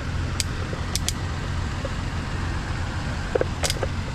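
Vehicle engine running steadily with a low hum, with a few sharp clicks over it, twice close together about a second in and once near the end.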